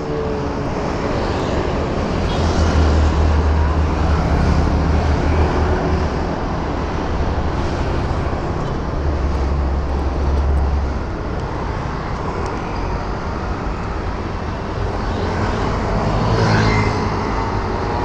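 Kawasaki Ninja H2's supercharged inline-four idling through an aftermarket slip-on exhaust: a steady, deep running sound that swells twice, for a few seconds each time.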